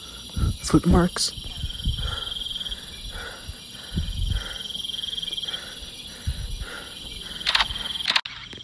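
Crickets chirping steadily at night, a high trill with a lower pulse repeating about three times a second. A couple of short sharp sounds near the end.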